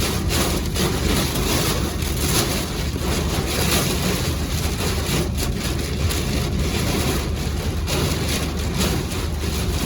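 Hurricane-force derecho wind rushing and buffeting the microphone, a loud, continuous rush that surges in gusts.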